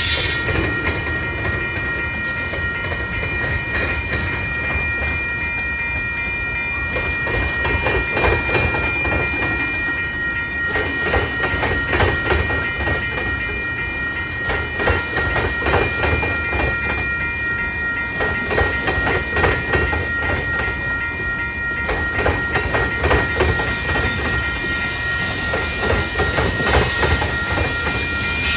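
Freight train of tank cars rolling past at a grade crossing, a steady rumble with the wheels clicking over rail joints in irregular clusters. A few steady high tones run underneath throughout, in keeping with the crossing's warning bell.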